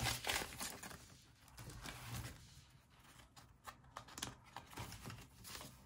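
Paper banknotes rustling softly as they are handled, counted and slid into an envelope in a cash binder, in a few scattered brief rustles.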